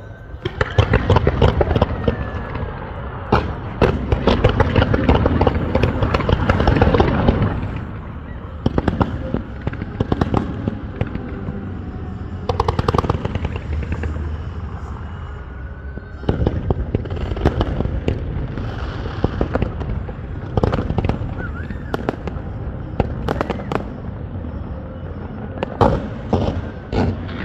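Fireworks display: a dense, rapid run of bangs and crackling for the first seven seconds or so, then scattered single bangs and short volleys of reports.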